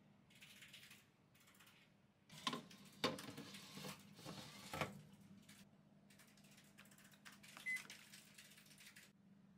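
A metal baking tray clattering and knocking as it is slid into a Panasonic Bistro oven range, in a cluster of clicks and knocks a couple of seconds in. Near the end, a single short electronic beep from the oven's control panel as the 15-minute bake is set, over a steady low hum.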